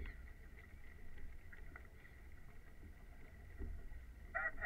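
Water washing along the bow of a moving rowing eight, with a low wind rumble on the microphone.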